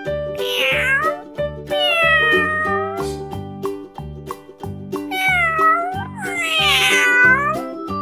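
Domestic cat meowing: four drawn-out meows in two pairs, over children's background music with a steady beat.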